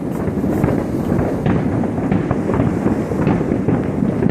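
Dense, continuous crackle of many fireworks and firecrackers going off all around, a steady barrage of overlapping bangs and pops with sharper cracks standing out.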